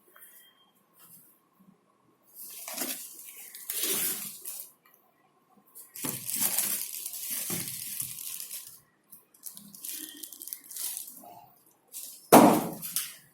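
Water splashing and sloshing in irregular bursts inside a fully automatic washing machine's drum, the loudest burst near the end. A faint steady tone sits underneath.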